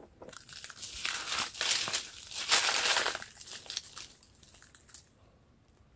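Rustling and crinkling of dry leaves and the stems and leaves of cut green mango bunches being handled, loudest a little past the middle and stopping about a second before the end.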